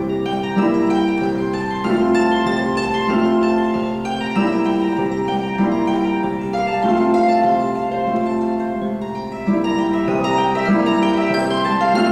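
Concert pedal harp playing alone: a repeated pattern of plucked chords and broken-chord figures, a new chord sounding about every second and ringing on.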